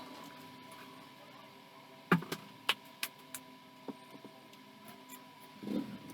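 A run of about six sharp clicks and knocks over two seconds, the first the loudest, over a faint steady hum.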